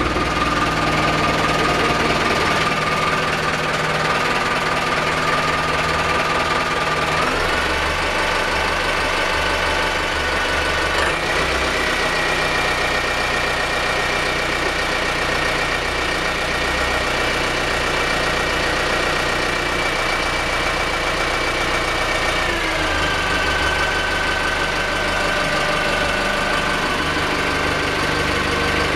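Turbocharged inboard diesel engine of a fishing boat running, with a steady low rumble and a high whine. The whine steps up in pitch about 7 and 11 seconds in and drops back about 22 seconds in as engine speed changes.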